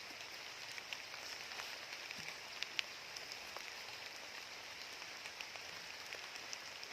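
Steady faint high hiss with scattered small ticks and drip-like clicks, a couple of them sharper near the middle, as an eel trap is lifted and handled.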